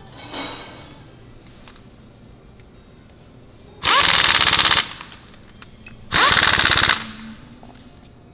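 Pneumatic impact wrench hammering mounting bolts tight, in two bursts of rapid impacts about a second each.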